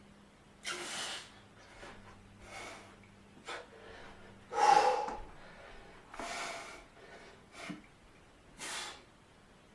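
A man breathing hard through nose and mouth while holding a flexed bodybuilding pose: about nine sharp, forceful breaths at irregular intervals, the loudest one near the middle.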